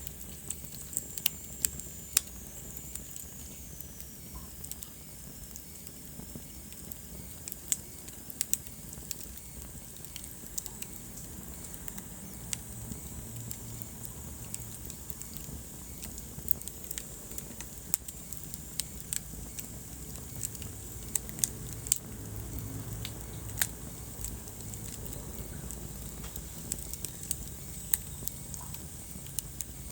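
Wood fire crackling in a fireplace: sharp, irregular pops and snaps over a low, steady rumble of flames. A faint high whistle falls in pitch during the first few seconds.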